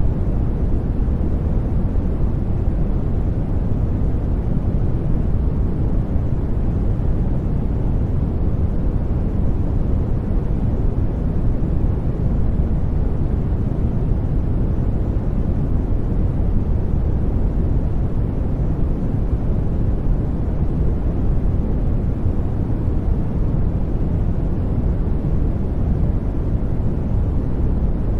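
Steady white-noise track, deep and rumbling, with most of its weight low and little hiss on top, never changing.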